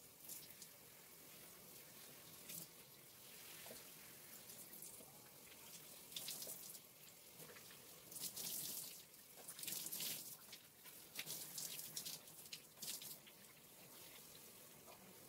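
Faint running tap water at a sink, with irregular splashing as clay mask is rinsed out of hair.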